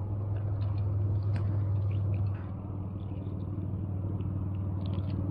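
A motor running steadily with a low hum, easing off slightly a little over two seconds in, with a few faint light ticks over it.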